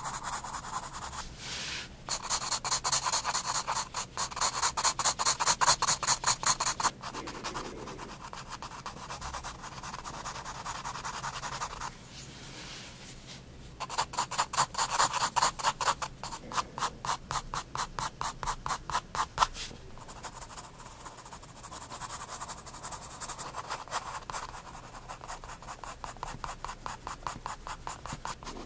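Soft 9B graphite pencil scratching on sketchbook paper in quick back-and-forth shading strokes, several a second. Two loud runs of fast strokes, each a few seconds long, come with softer, lighter stroking between and after them.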